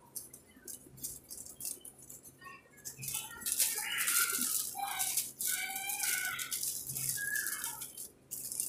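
Thin clear plastic wrappers of makeup brushes crinkling and rustling as they are handled, denser and louder from about three seconds in.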